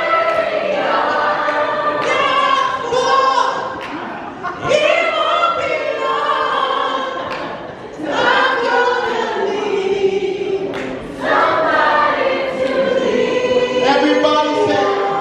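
A group of men singing together in harmony, in a lively vocal-group style, with short breaks between phrases.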